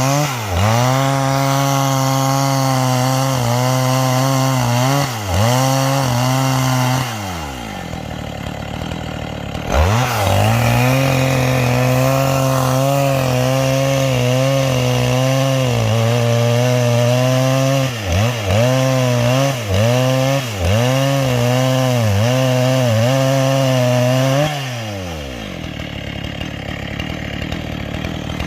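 Two-stroke chainsaw with a square-ground chisel chain ripping a garapa hardwood log lengthwise at full throttle. Its pitch dips briefly over and over as the chain bites and loads the engine. It drops to a slow run about seven seconds in, revs back up and cuts again from about ten seconds, then drops back near the end.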